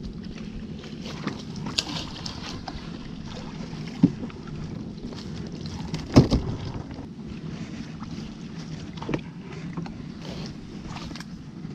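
Small wooden skiff moving along a shallow canal: a steady low hum with water and wind noise, broken by a few sharp knocks on the hull, the loudest about six seconds in, as the long-handled dip net is swung over and laid in the boat.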